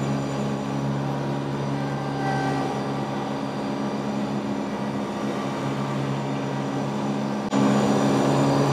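John Deere 2038R compact tractor's three-cylinder diesel engine running steadily under load, with its 72-inch mid-mount mower deck cutting grass. The sound gets louder near the end.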